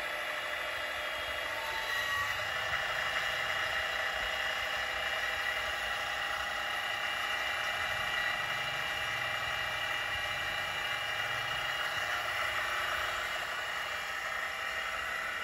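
Milling machine running in a spiral-milling setup, its motor, belt drive and change-gear train turning the rotary table and table feed together, with a steady machine whine.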